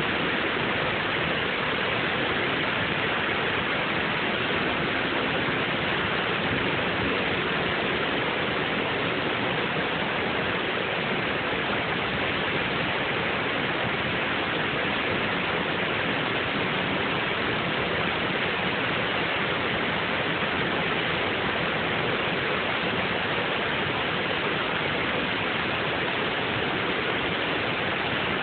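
River water pouring over a low dam, a steady, unbroken rushing.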